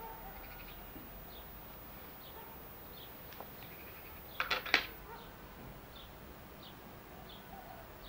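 Faint high chirps repeating at a steady pace, and about halfway through a short, loud, stuttering animal call.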